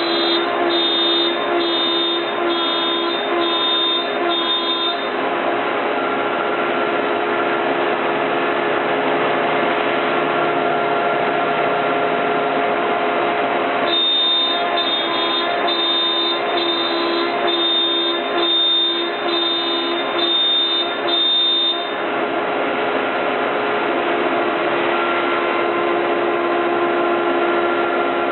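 CNC router spindle with a 1/4-inch bit running steadily while cutting MDF, a loud whine made of several steady tones. For the first few seconds and again through a long middle stretch, a higher tone pulses on and off about one and a half times a second.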